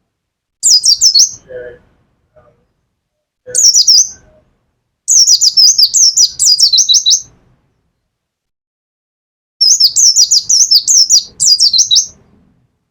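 A caged white-eye (pleci) singing in loud bursts of rapid, high, down-slurred chirping notes. Four phrases: a short one about half a second in, another near four seconds, a longer one of about two and a half seconds from five seconds in, and a last one of about three seconds near the end.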